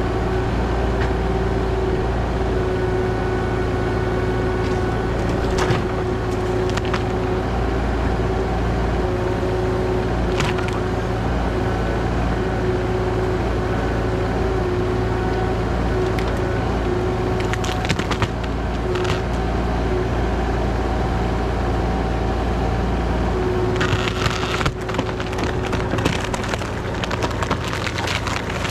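Diesel engine of a compact earth-moving machine running steadily under load, with wood cracking and splintering now and then as trees and brush are broken up, most densely near the end.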